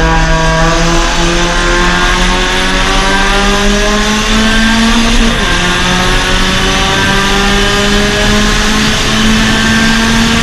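Suzuki Swift Sport race car's 1.6-litre four-cylinder engine pulling hard out of a corner, its pitch climbing, dropping with an upshift about five seconds in, then climbing again, with steady wind and road noise underneath.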